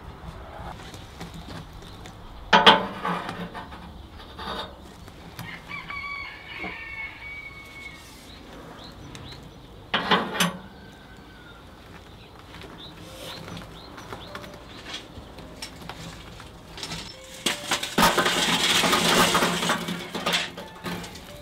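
Two sharp metal clanks from a steel offset smoker, then lit charcoal tipped from a chimney starter into the firebox, the hot coals clattering onto the steel for about three seconds near the end.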